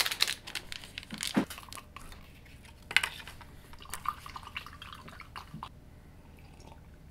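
Paper sugar packets crinkling, then a stir stick tapping and scraping in an enamel mug of coffee, with the sharpest tap about three seconds in.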